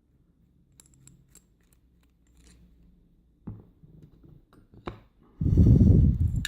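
Small metal clicks and a few sharp knocks as a screwdriver works a small Loctite-locked screw out of a heavy Abus padlock body, then a loud, muffled low rumble lasting about a second near the end.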